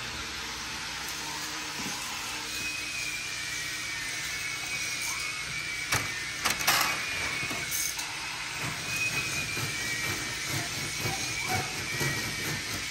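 Small toy motors whirring steadily with a faint wavering whine. About six seconds in come a few sharp clicks as the LEGO roller coaster's train is handled at the station, then a rapid clatter from the model as the train climbs the lift hill.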